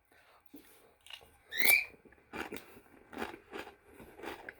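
Doritos tortilla chips being chewed, crunching about three times a second from about halfway in. Just before the chewing, a short high squeak that rises in pitch.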